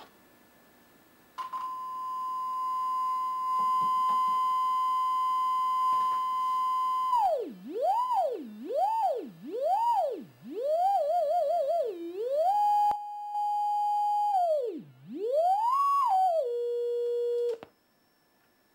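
Test tone from a function generator played through a large paper-cone loudspeaker driven by a self-built breadboard audio power amplifier. A steady high tone starts a second or so in. Its pitch then swoops down low and back up several times, holds briefly at a few steady pitches, and cuts off suddenly near the end.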